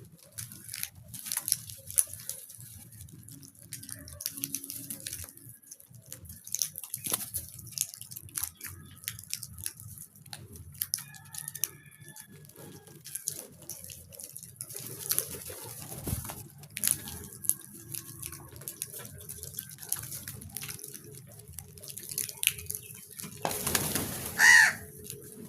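Crows and hens foraging together: many light sharp taps, as of pecking, with soft faint clucks. One loud bird call comes shortly before the end.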